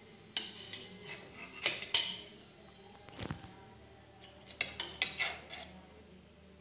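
A metal utensil clinking and scraping inside a stainless-steel mixer-grinder jar while ground beetroot paste is scooped out. The sharp clinks come every second or so, the loudest about two seconds in, with a quick cluster of them around five seconds in.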